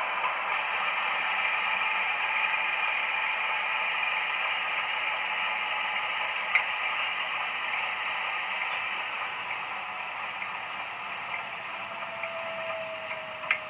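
Sound-fitted 00 gauge model class 31 diesel's DCC sound decoder playing through its small speaker after being switched off: a steady engine noise slowly dies away, with a couple of sharp clicks and a falling whine near the end as the engine runs down.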